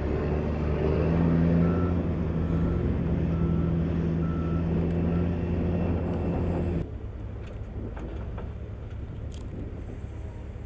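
Rough-terrain forklift engine running steadily, with its reversing alarm beeping about five times. The engine sound cuts off sharply about seven seconds in, leaving a quieter background with a few faint clicks.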